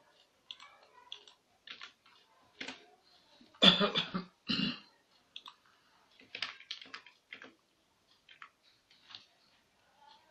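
Computer mouse clicks at irregular intervals, with a person coughing loudly about three and a half seconds in, the cough in two parts.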